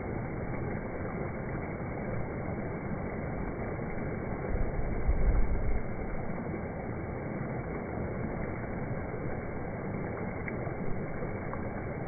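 Water rushing over a rock ledge at the top of a waterfall, a steady dull-sounding rush with the high end cut off. It swells briefly louder and lower about five seconds in.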